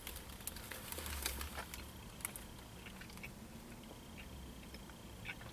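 Faint eating sounds: scattered small clicks and smacks of a person chewing a soft-tortilla grilled shrimp taco.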